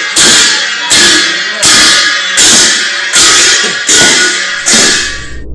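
Ritual cymbals and drum played together in a slow steady beat of about one stroke every three-quarters of a second, each crash ringing on until the next: seven strokes, then the sound cuts off suddenly near the end.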